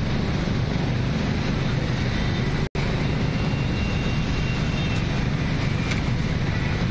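Steady rushing of swollen, fast-flowing floodwater in an urban drainage stream, a continuous low-heavy noise with no let-up; the sound cuts out for an instant a little under three seconds in.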